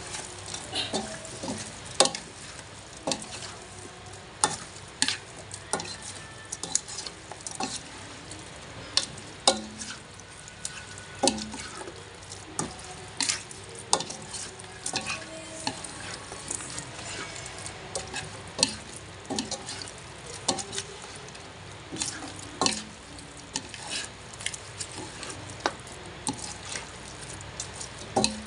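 Shrimp and squid sautéing in a pan, stirred with a metal ladle: a steady sizzle broken by irregular scrapes and clanks of metal against the pan, about once or twice a second.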